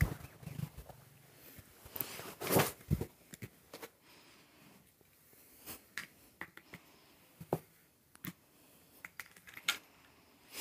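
Scattered clicks, taps and rustles of a ribbed plastic street-lamp globe being turned by hand on blankets with a cat inside, with a louder run of rustling and knocks about two to three seconds in.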